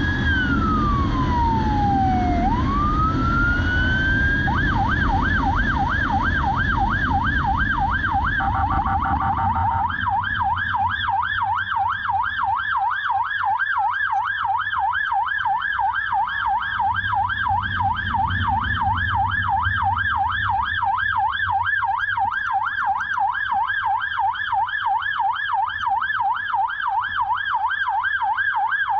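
Police motorcycle's electronic siren: a slow wail rising and falling for about four seconds, then switching to a fast yelp that keeps going. Underneath is a low rumble of engine and wind, which eases after about ten seconds.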